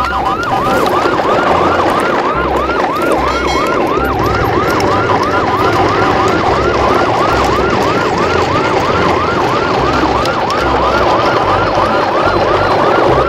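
Electronic emergency-vehicle siren in a fast yelp, its pitch swooping up and down about three times a second without a break. Irregular low thuds sit underneath.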